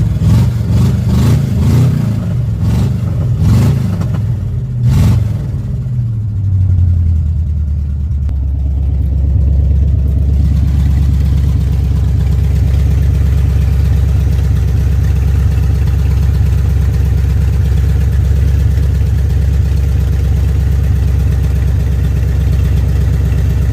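1987 Ford Mustang GT's 5.0-litre V8 revved several times in the first five or six seconds, then settling into a steady idle.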